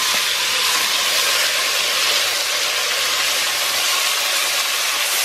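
Seasoned cow cod pieces sizzling steadily in hot oil in a stainless pressure-cooker pot, being sautéed and stirred with a wooden spatula at the start of browning.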